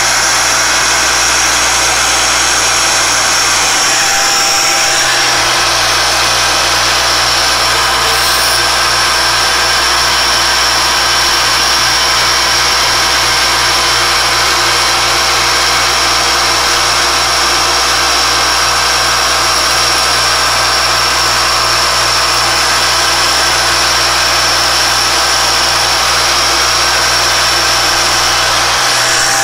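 Alexander Model 3A pantograph engraving and milling machine running steadily, its spindle turning a 1/8 inch four-flute carbide end mill as it cuts a pocket in a thin metal plate, with a constant high whine over a low hum.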